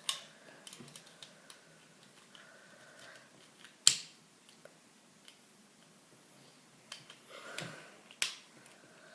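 Plastic Lego pieces being handled and pressed together: scattered light clicks and taps, with one sharp snap about four seconds in and another near the end.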